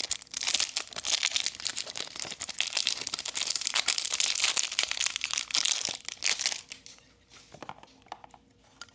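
Thin clear plastic wrapper crinkling as it is pulled and peeled off a small plastic card stand. The crinkling stops about two-thirds of the way through, leaving a couple of faint taps of plastic being handled.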